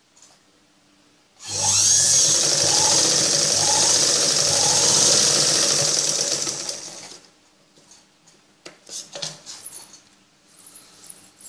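Sewing machine running steadily as it stitches a seam through the fabric, starting about a second and a half in and running for about five seconds before slowing to a stop. Scattered small clicks and fabric handling follow.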